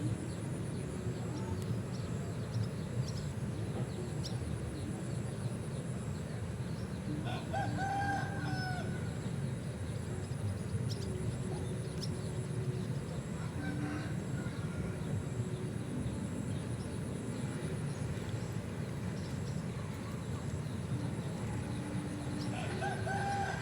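A rooster crowing twice, once about seven seconds in and again near the end, over a steady low background noise.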